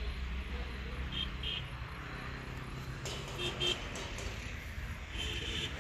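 Outdoor ambience: a low steady rumble with short high chirps, a quick pair about a second in, a few more around three seconds in, and a longer one near the end.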